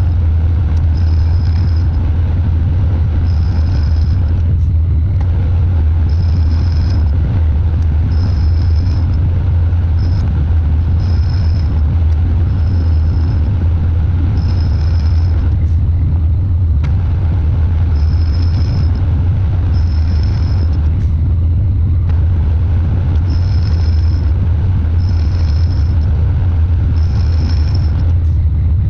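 Metal lathe running steadily while facing an aluminium workpiece: a loud, constant low motor hum, with a thin high-pitched tone that comes and goes every second or two.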